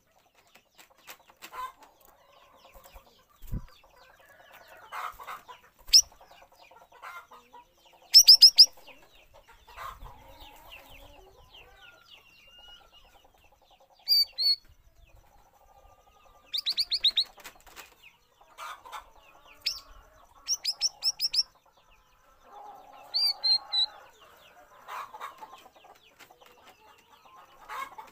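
Stripe-throated bulbul (cucak rawis) calling: short bursts of sharp, rapid high notes and a few quick falling chirps, spaced irregularly, with softer, lower chattering calls in between.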